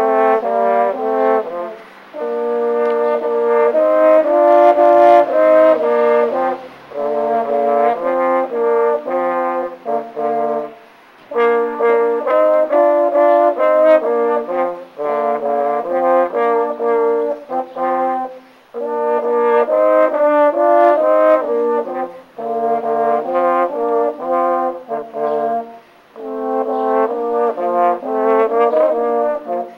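Two French horns playing a duet in two parts, note by note, in phrases broken by short pauses every few seconds.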